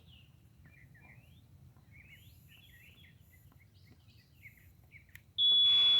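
Birds chirping faintly, then a click and a loud, steady high-pitched beep from the Mighty Mule wireless gate keypad starting near the end.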